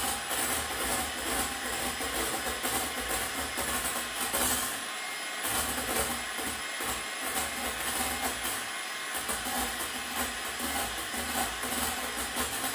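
Electric hand mixer running steadily, its beaters whisking egg whites in a stainless steel bowl to whip them into stiff peaks.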